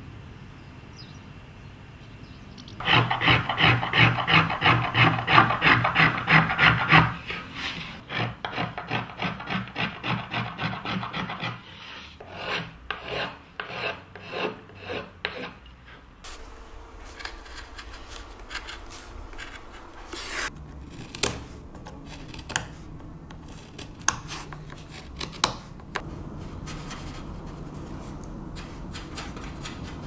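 Hand tools rasping and shaving wood in a violin maker's workshop. Rapid rhythmic strokes, several a second, start about three seconds in and are loudest for the next few seconds. They then slow into separate strokes and, later, scattered light clicks.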